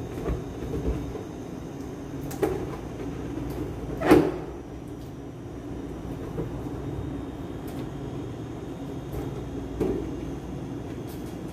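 Helium-filled latex balloon being handled and tied off by hand: rubbing of the latex neck with a few short knocks and squeaks, the loudest about four seconds in, over a steady low hum.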